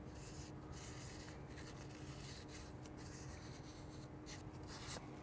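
Faint rubbing of a cloth wipe over the carbon seal as residual oil is cleaned off with isopropyl alcohol, over a steady low hum.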